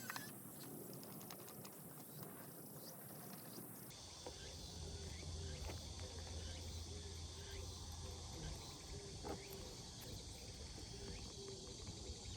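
Insects chirping in a steady outdoor chorus. About four seconds in the background changes abruptly and a low rumble comes in under the chirping.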